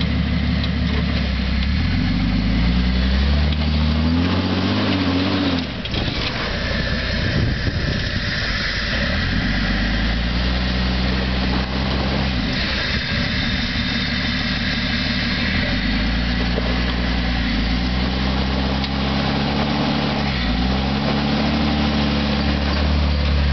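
Jeep engine labouring in low gear as it crawls up a steep rock ledge, revving up and easing off. The pitch climbs over the first few seconds and drops sharply about six seconds in. It then holds low and rises again in short pushes near the end.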